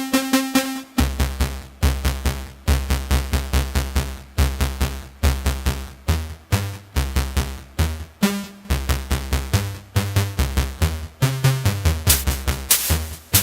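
Eurorack modular synthesizer playing a sequenced electronic pattern of short, fast bass notes with drum-machine-like percussion, driven by the RIT_M CV sequencer. The bass pitches shift in the last few seconds, as a live CV from the knob or CV input takes over from the recorded sequence while the gates keep running.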